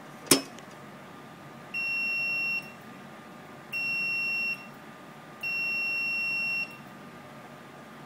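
Multimeter continuity beeper sounding three times, each a steady high beep of about a second, as the test probes touch the pins of a small push-button switch: the sign of a closed contact through the switch. A single sharp click comes just before the first beep.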